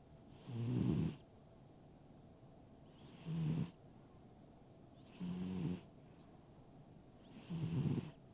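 An old pet snoring in its sleep: four snores about two to two and a half seconds apart, each lasting about half a second.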